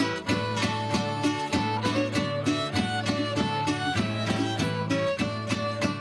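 Traditional string band playing an instrumental dance tune: strummed guitars and a drum keep a steady, quick beat under a melody line.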